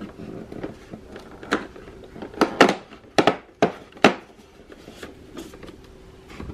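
Cardboard door of an advent calendar being pushed in and torn open along its perforations, with the small jar inside handled: a few sharp rips and knocks, the loudest a little over halfway through.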